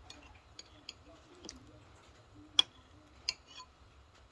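Metal spoon tapping and clinking against a ceramic soup bowl: scattered light clicks, the sharpest about two and a half seconds in.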